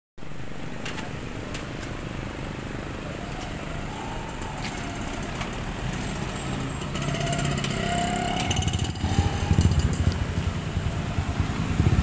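Street traffic: car and motorcycle engines running and passing by, a steady rumble that grows louder about two-thirds of the way through.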